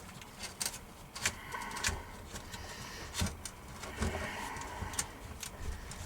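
Small parts of a 12 V rocker switch panel being handled and fitted: several sharp clicks and knocks, with stretches of scraping and rubbing between them.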